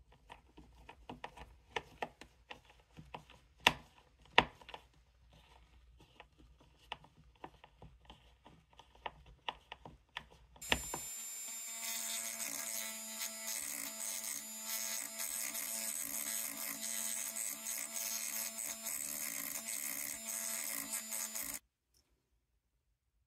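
Small screws being driven into box hinges with a hand screwdriver, with light clicks and a few sharp taps. About eleven seconds in, a small rotary tool with a grinding stone starts and runs steadily for about ten seconds, grinding down screw tips that poke through the thin wood, then cuts off sharply.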